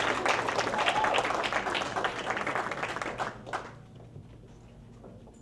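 Audience applauding, the clapping thinning out and stopping about three and a half seconds in.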